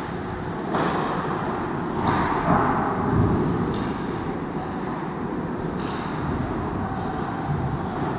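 Ice hockey rink ambience during play: a steady wash of noise broken by about four sharp knocks, from sticks, puck and boards, with a louder stretch about a third of the way in.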